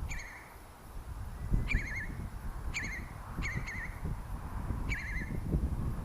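A wading bird calling in alarm near its nest: five short calls, each a sharp high note dropping into a wavering trill, repeated every second or so.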